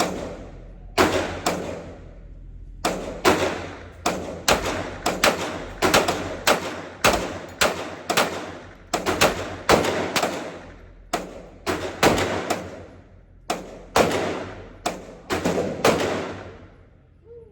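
Rapid handgun fire, most likely a 9 mm Glock 19 pistol, in strings of about two to three shots a second with a few short pauses. Each shot is a sharp crack with a reverberant tail, as in an indoor range.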